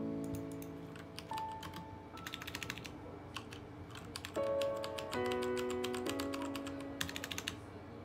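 Typing on a Royal Kludge RK987 mechanical keyboard: quick runs of clicking keystrokes with short pauses between them, showing that it works when wired. Background music plays underneath.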